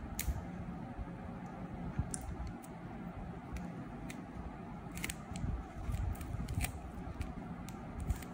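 Clear tape crinkling and clicking as fingers fold and press it around a paper cloud squishy, in scattered sharp ticks over a steady low hiss, busiest a little past the middle.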